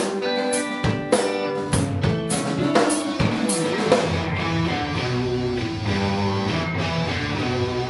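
Live rock band playing an instrumental passage on drum kit, electric guitars, bass and keyboard. The drums stop about halfway through, leaving held guitar and keyboard chords over the bass.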